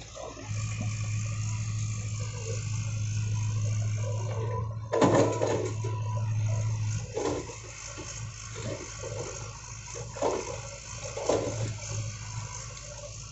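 JCB tracked excavator's engine running steadily as its bucket pushes through brush and small trees. There are several bursts of crashing and crackling from vegetation and branches giving way, the loudest about five seconds in.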